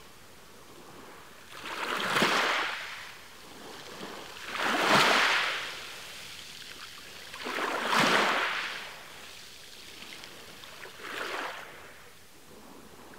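Water waves washing in: four soft surges of hiss about three seconds apart, each swelling and fading away, the second the loudest and the last the faintest.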